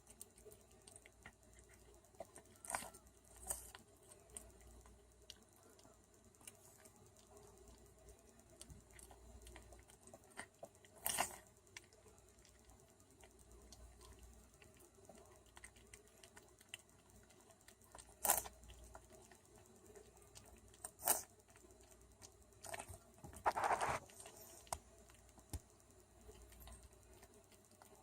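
Short, sharp sneezes and sniffles, about six scattered through, the last a longer snuffle near the end, over faint clicking and rustling.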